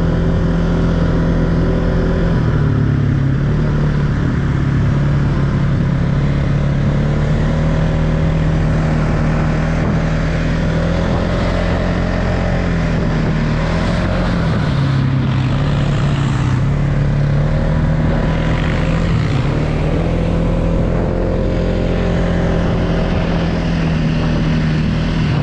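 Four-wheeler (ATV) engine running steadily under way, its pitch dipping and coming back up a few times as the throttle and speed change.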